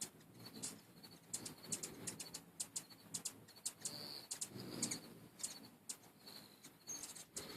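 Hummingbirds at a feeder: many quick, high chip notes, with a low wing hum that swells and fades as birds hover close.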